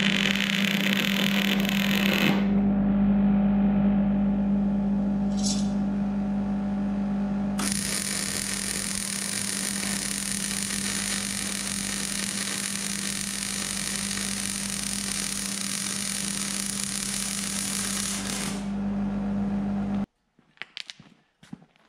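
Wire-feed (MIG) welding on a steel frame: the arc crackles and hisses in runs, stopping about two seconds in and starting again near eight seconds for about ten seconds, over a steady low hum. The sound cuts off abruptly shortly before the end.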